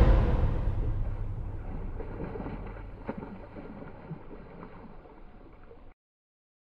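Outdoor wind rumble on the microphone over open water, fading steadily, with one short splash about three seconds in as a bass strikes a topwater lure in the reeds. The sound cuts off to silence near the end.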